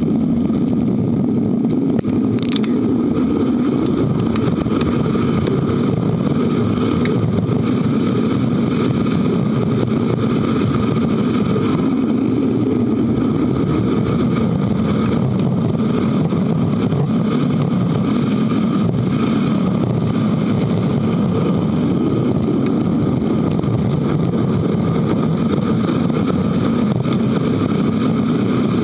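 Steady wind and road noise on a handlebar-mounted camera while riding a Trek 7.3 FX hybrid bicycle along a road, with a brief click about two and a half seconds in.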